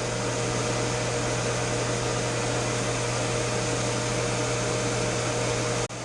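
Ninja Foodi Deluxe running on air crisp: its fan blows hot air with a steady whir over a low hum. The sound breaks off sharply for an instant near the end and returns a little quieter.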